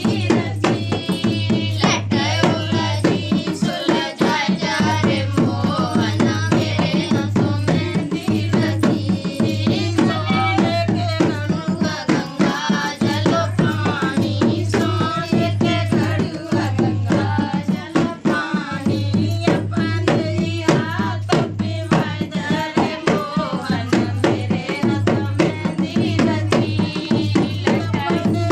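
Indian folk song with singing over fast, steady dholak drumming.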